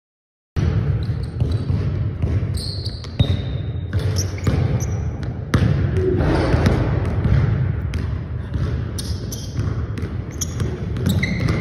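Basketball dribbled on a hardwood gym floor, with repeated sharp bounces, sneakers shuffling, and short high squeaks of shoe soles on the boards, all echoing in the hall.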